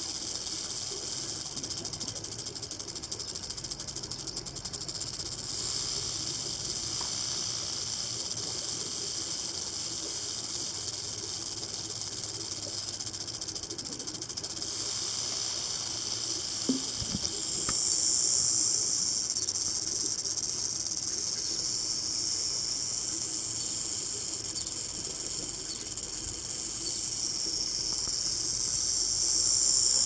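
Rattlesnake shaking its tail rattle in a continuous high buzz, swelling louder twice, about two-thirds of the way through and again at the end: the defensive warning of a snake that is stuck and cornered.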